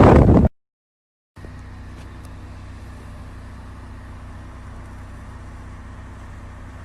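Loud gusty noise cuts off abruptly, and after about a second of silence a vehicle engine runs with a steady low drone.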